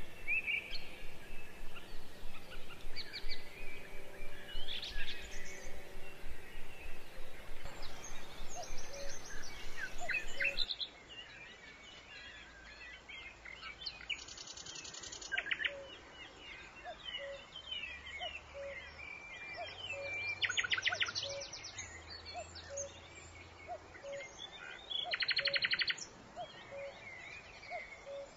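Many birds chirping and calling. The chirping gets quieter about ten seconds in, and in the second half there are several short rapid trills.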